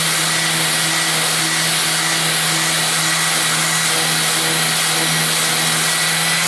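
Festool random-orbit sander running at steady speed, its pad sanding dried Timbermate wood filler off an MDF board, with a dust-extraction hose attached: a steady motor hum and a thin high whine over a hiss.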